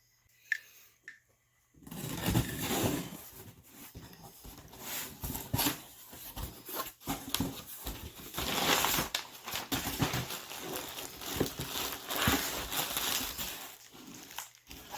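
Packaging being handled: irregular rustling and crinkling of wrapping and boxes with small knocks, starting about two seconds in.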